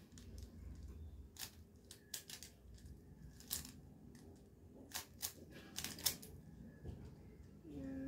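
A plastic 3x3 Rubik's cube being turned fast by hand, its layers clicking and clacking in irregular quick runs as it is solved.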